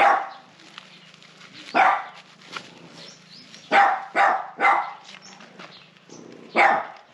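A dog barking: six sharp barks at uneven intervals, three of them in quick succession around the middle. A faint, low, steady hum runs underneath.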